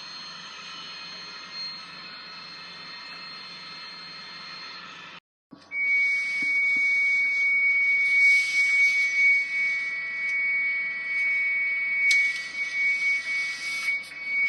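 Hitachi elevator electronic signal tones, two recordings one after the other. First a faint steady high tone for about five seconds. Then, after a short break, a louder steady tone that holds for about nine seconds over background hiss and cuts off abruptly at the end.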